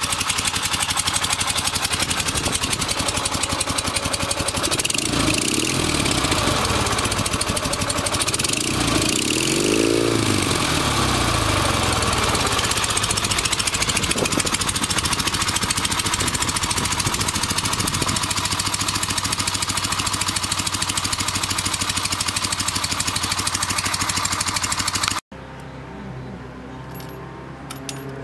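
Chang Jiang CJ750 M1's air-cooled flat-twin boxer engine running steadily, with two throttle blips about five and ten seconds in that raise and drop the pitch. Near the end it cuts off suddenly to a quieter, steady engine sound.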